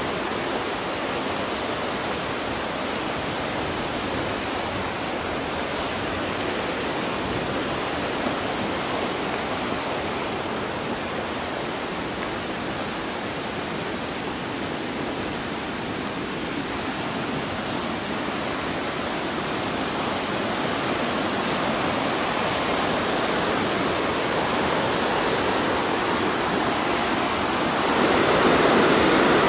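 Rushing whitewater river, a steady noise of fast water that grows louder near the end as it comes closer.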